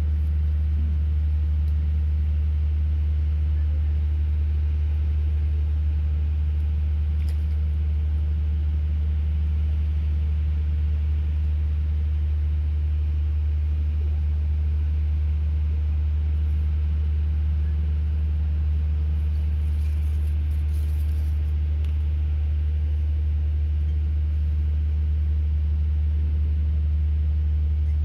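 A steady, low-pitched mechanical drone, like an engine running at a constant speed, holding unchanged throughout.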